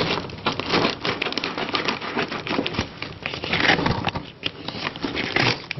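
Scissors cutting through the packing tape and plastic wrapping of a parcel, with the plastic crinkling and crackling in an irregular run of small clicks and rustles.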